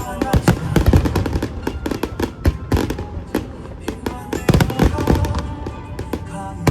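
Aerial fireworks bursting in quick, irregular succession, many bangs close together, the heaviest a little under a second in and again near the middle, over music with held notes.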